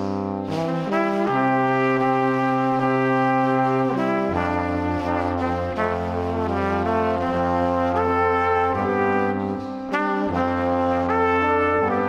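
Background music of slow, sustained chords that change every few seconds.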